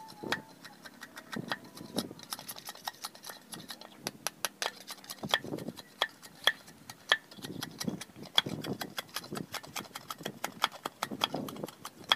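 Machete blade chopping and shaving at wood: a run of quick, irregular ticks and knocks of steel on wood, with a few heavier chops among them.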